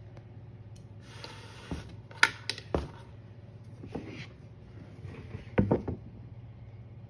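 Handling noise: a brief rustle, then several sharp clicks and knocks, the loudest about two seconds in and a cluster near six seconds, over a steady low hum.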